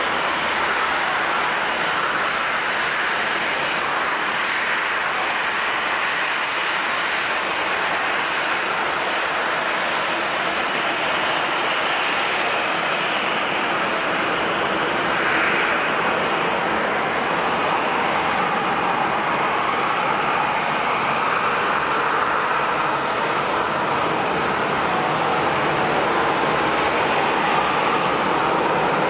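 Airliner engines running, a steady, continuous engine noise whose pitch drifts slowly, getting slightly louder near the end.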